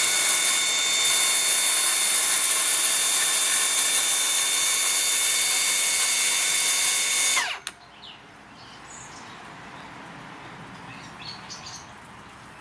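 Milwaukee M18 cordless track saw making a shallow scoring cut along its guide rail: a steady high-pitched motor whine with the blade at speed. About seven and a half seconds in, the saw winds down quickly and stops.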